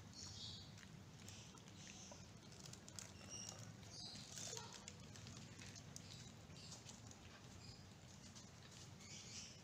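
Kittens eating from a plate, faint scattered chewing and smacking clicks of boiled chicken head mixed with rice.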